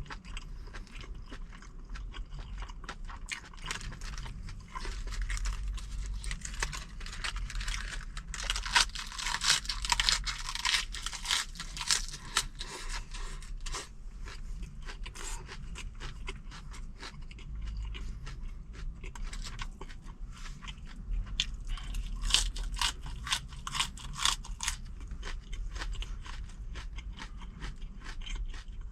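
Close-miked chewing and crunching of fresh kimchi and boiled pork, a steady run of crisp crunches that grows loudest about a third of the way in and again in the last third.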